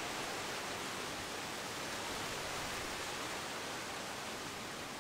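Steady, even rushing noise of outdoor ambience, breeze and rustling foliage, with no distinct events.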